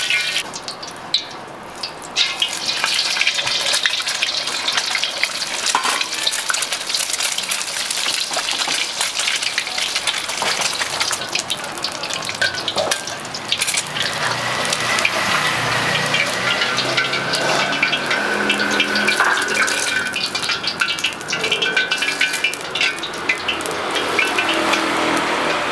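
An egg frying in hot oil in a steel wok over a gas burner: a steady crackling sizzle, louder from about two seconds in, with short scrapes of a steel spatula against the wok.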